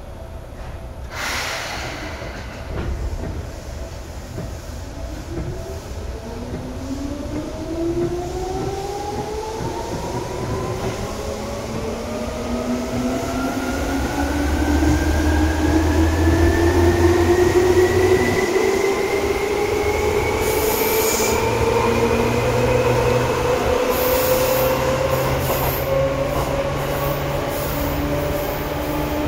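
Seibu 2000 series electric train pulling away, heard from inside the car: its chopper-controlled traction motors and gears whine in several tones that rise steadily in pitch as it accelerates, over a low running rumble. A short burst of noise comes about a second in.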